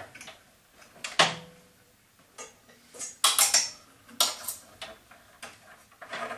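Metal clanks and clinks from metal parts being handled, a loud clang with a short ring about a second in, then scattered clusters of rattling knocks.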